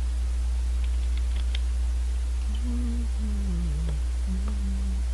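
A man humming a few notes with his mouth closed, in three short phrases starting about halfway through, the middle one dipping in pitch. Under it runs a steady low electrical hum on the microphone, with a few faint clicks about a second in.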